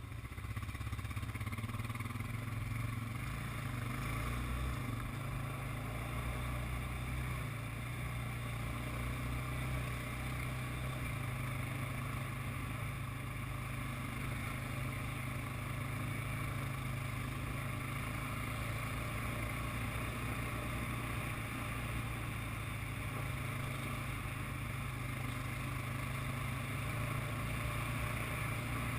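ATV engine running under way, a steady low drone that picks up about half a second in and then holds even.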